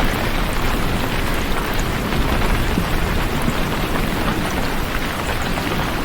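Heavy rain pouring steadily: an even, dense hiss with a deep rumble underneath.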